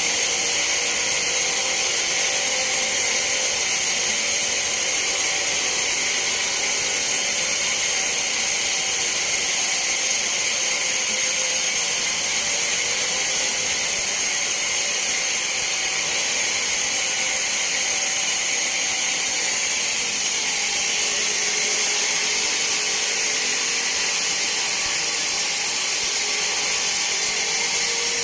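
Band sawmill running steadily through a large teak log: a continuous high hiss with no change in level.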